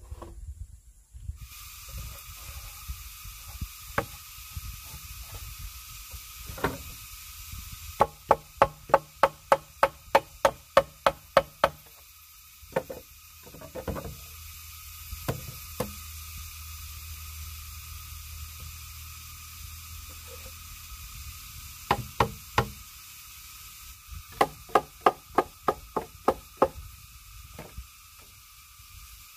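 Hammer striking bamboo in runs of quick, sharp knocks, about three a second, with single knocks between the runs.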